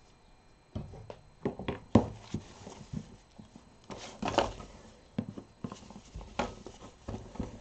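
Wiping a dirty box clean with a wet wipe: irregular rustling and scuffing with light knocks of handling, the strongest scrub about four seconds in.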